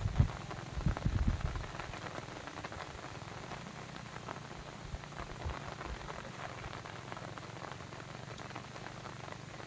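Steady patter and splash of water, dense with fine drop-like ticks, with a few low rumbles in the first second and a half.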